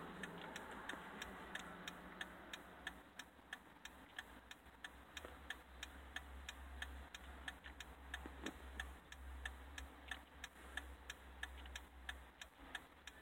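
2005 Jeep Liberty's turn-signal indicator clicking at an even pace, about three to four clicks a second, the signals flashing normally rather than sticking on. A faint low hum runs underneath.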